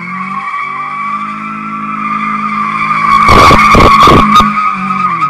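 FSO Polonez with a 1.4 16-valve engine drifting, its rear tyres squealing steadily while the engine runs under load. A cluster of loud bursts of rough noise comes about three seconds in as the car slides close by.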